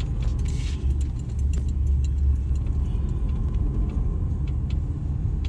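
Steady low engine and road rumble of a car driving slowly, heard from inside the cabin, with a few faint clicks.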